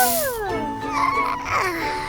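Cartoon background music with squeaky, babbling character sounds that slide up and down in pitch.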